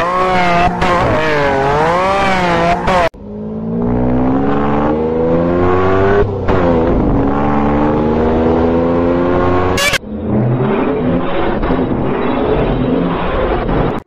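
Lamborghini engine revving sound effect played in digitally altered variations: first with its pitch wobbling up and down, then after about three seconds a slowed-down rev that climbs gradually in pitch, and about ten seconds in a duller, muffled version.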